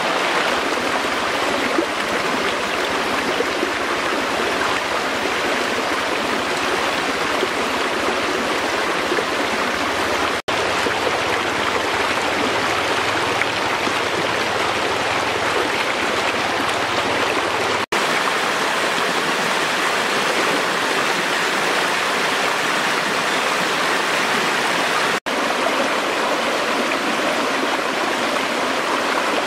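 Shallow, fast mountain stream rushing and splashing steadily over rocks, broken by three momentary gaps.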